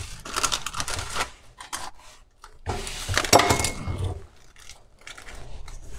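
Tableware being handled on a wooden table: light rustles and knocks, with a ceramic cup set down about halfway through in a sharper clink that rings briefly.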